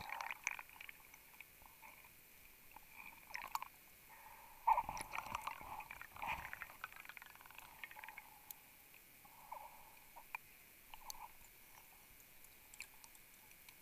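Faint, muffled underwater gurgles, scrapes and clicks from a diver moving through a tight wreck passage, busiest about five seconds in and thinning to scattered clicks.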